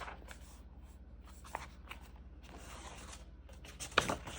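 Soft paper rustling and light clicks from handling a book, with a sharper tap about four seconds in.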